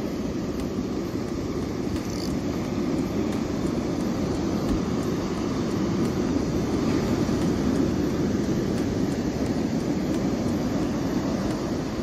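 Steady low noise of breaking surf and wind, swelling a little through the middle and easing off near the end.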